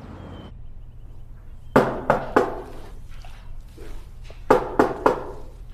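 Knocking on a door: three quick knocks, then a second set of three a couple of seconds later.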